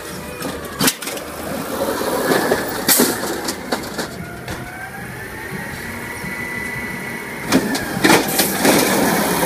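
Automated side-loader garbage truck raising its lifting arm: the diesel engine runs under hydraulic load, with a whine that rises in pitch near the middle and holds. Sharp metallic clanks come about a second in, around three seconds in, and a cluster near the end.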